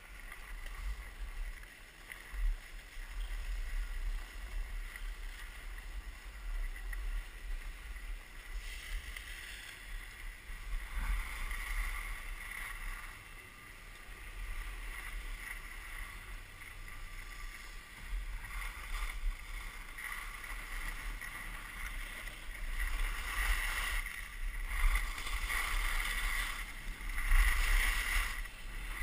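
Skis hissing and scraping over packed snow during a downhill run, with wind rumbling on the microphone. The scraping comes and goes with the turns and is loudest in the last few seconds.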